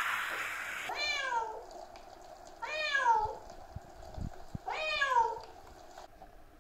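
A calico cat meows three times while being showered, each meow about half a second long and falling in pitch. Beneath, a hand shower sprays water, its hiss dropping sharply about a second in as the head is pressed against the wet fur.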